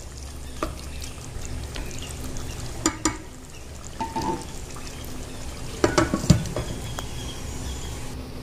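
A spatula stirring a wet broad-bean curry in a stainless steel pot, with a few sharp knocks of utensil on metal, then clinks as a glass lid is set on the pot about six seconds in.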